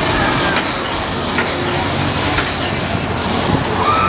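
Zipper carnival ride running, a steady mechanical din with a few sharp clanks as the cars swing past.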